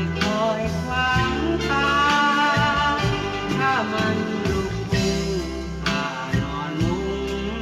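Thai luk thung song played from a vinyl record: singing over a band, with bass notes and drum strokes underneath.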